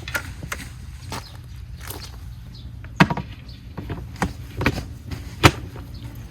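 A few scattered knocks and clacks, the loudest about three seconds in and another sharp one near the end, over a steady low hum.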